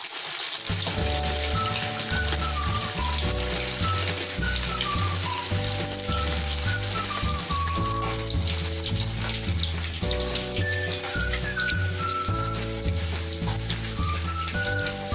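Soya chunks, coated in a flour-and-yogurt marinade, deep-frying in medium-hot oil: a steady sizzle full of fine crackles. Background music with a melody and a stepping bass line plays throughout.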